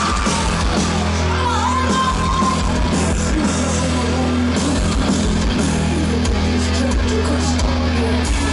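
Live heavy metal band playing loud, with electric guitars, drums and a heavy steady bass under a singer's voice.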